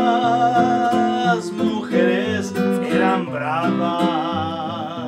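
A man singing a corrido in Spanish over a nylon-string classical guitar playing alternating bass notes and strummed chords. He holds one long note at the start, then sings a phrase with vibrato.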